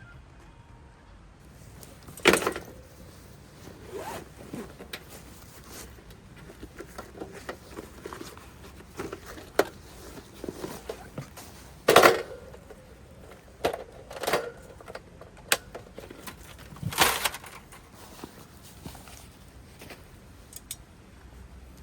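Camping gear being handled: scattered short rustling and scraping strokes, loudest about two seconds in, near the middle and about three-quarters of the way through.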